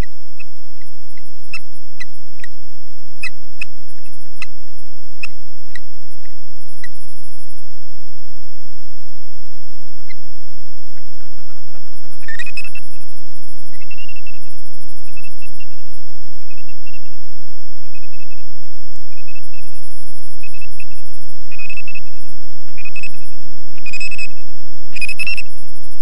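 Osprey giving alarm calls in defence of its nest. A few short sharp chirps come at first, then from about halfway a steady run of repeated high, piping call notes. All of it sits over a loud, steady hum and hiss with a thin high whine, the poor sound of the live webcam feed.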